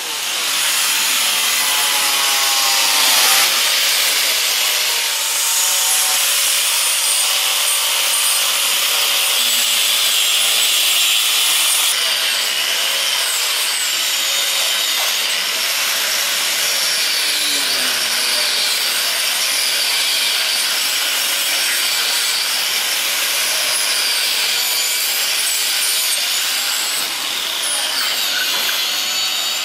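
Cordless angle grinder with an abrasive disc grinding into wood and foam, running loud and continuously, its motor whine wavering in pitch as it bites.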